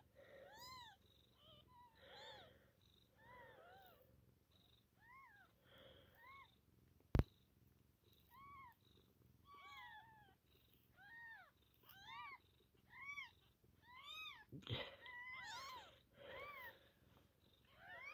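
Newborn Maine coon × elf sphynx kittens mewing: many short, high squeaks that rise and fall in pitch, coming thicker in the second half. A sharp click about seven seconds in.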